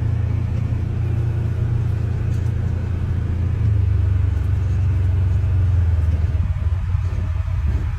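Steady low rumble of a car driving, heard from inside the cabin: road and engine noise, a little louder about halfway through.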